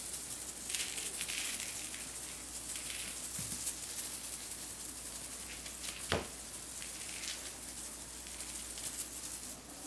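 Faint, steady crinkly rustling from the mylar tinsel strands of a feather wand toy being shaken and batted by kittens, with a single sharp click about six seconds in.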